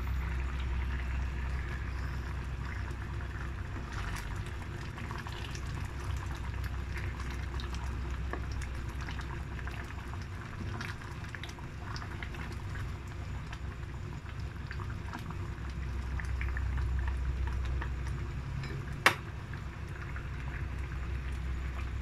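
A pot of mung bean stew boiling hard, bubbling and popping over a steady low rumble. There is a single sharp knock near the end.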